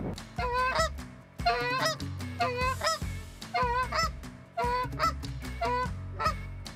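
Canada goose honks, loud and close, repeated about two a second in a steady string, over a low steady rumble.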